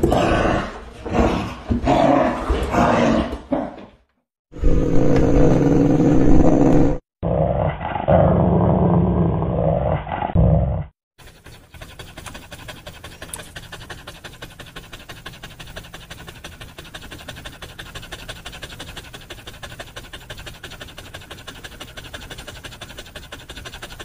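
Dog growling and snarling loudly in a few separate stretches broken by short silences. About eleven seconds in it gives way to a dog panting with quick, even breaths, much quieter.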